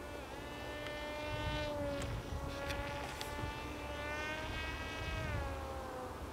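Zagi RC plane's motor and propeller buzzing with a steady, high, insect-like whine that slides down in pitch near the end.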